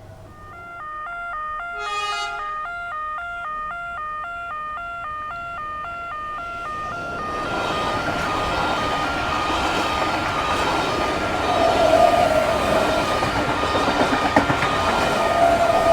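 Level crossing warning bells ringing in a rapid two-tone alternation, with a short horn blast about two seconds in. From about seven seconds a train approaches and rushes through the crossing at speed, loudest near twelve seconds.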